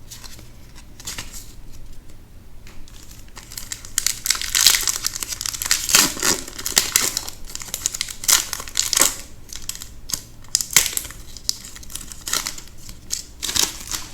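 Foil booster pack wrapper crinkling in irregular crackles as it is handled and opened.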